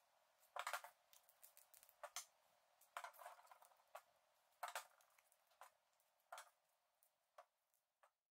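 Faint scrapes and knocks of a wooden dowel ramming foam down inside a PVC tube, in half a dozen short bursts.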